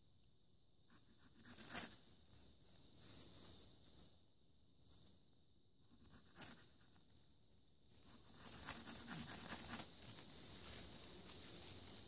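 Gerber Bear Grylls Ultimate Survival Knife blade shaving a stick of wood in short scraping strokes. A few separate strokes come first, then a quicker run of strokes through the last four seconds.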